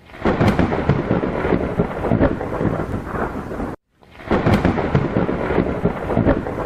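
Thunderstorm: heavy rain with rumbling thunder and a few sharp cracks. It cuts out abruptly for a moment a little past halfway, then starts again.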